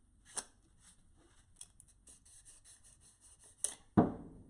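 Small metal parts being handled, with light clicking and a quick run of ticks, then a sharp, loud knock near the end.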